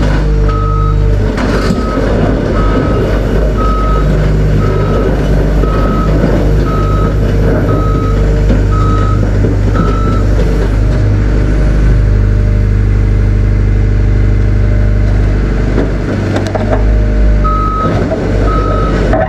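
A tracked excavator's travel alarm beeping at an even pace, about once every 0.7 s, over the steady running of heavy diesel engines. The beeping stops about ten seconds in and starts again shortly before the end, as the machine moves again.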